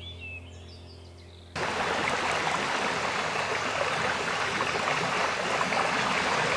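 Steady rushing roar of a large waterfall, starting suddenly about a second and a half in and staying loud. Before it, faint birdsong chirps over a low steady hum.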